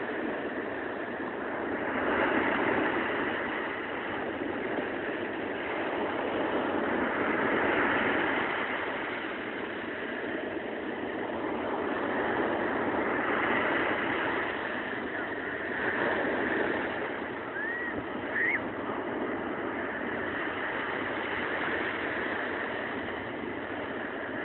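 Small waves breaking on a sand beach and washing up the shore, the surf swelling and falling back every five or six seconds. Two short rising chirps sound about three-quarters of the way through.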